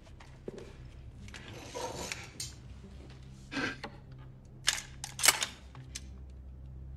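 Low steady drone with a man's ragged, breathy gasps, then two sharp clicks a little after the middle, the second the louder.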